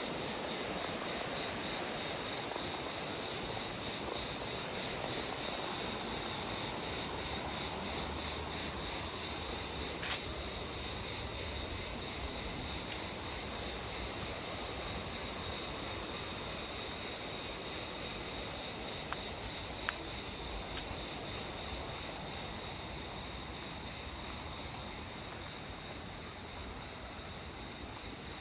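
Steady, high-pitched insect chirring with a fast, even pulse, over a constant rushing background.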